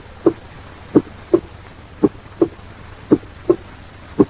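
Normal first and second heart sounds (S1 and S2) at the cardiac apex: a regular lub-dub, about one beat a second. The first sound of each pair is somewhat lower in pitch and louder than the second.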